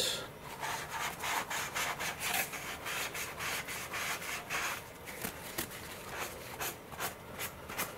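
Paper towel wetted with rubbing alcohol rubbed over a model sailplane fuselage in quick, irregular wiping strokes, cleaning off excess glue that has oozed out of a fresh joint.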